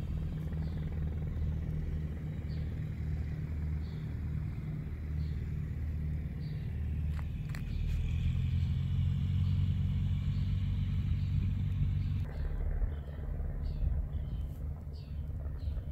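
Low, steady engine rumble from a running motor nearby. It grows louder for a few seconds, then drops off sharply about twelve seconds in. After that, short high chirps repeat about twice a second.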